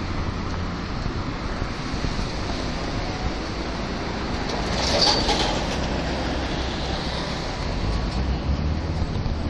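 Road traffic at a city intersection: cars passing, swelling to its loudest about halfway through as a vehicle goes by, with a short high note at the peak.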